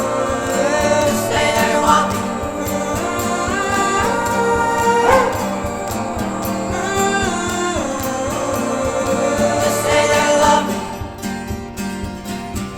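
A song with long held, sliding sung notes without clear words over acoustic guitar. About eleven seconds in, the voice stops and the guitar carries on alone.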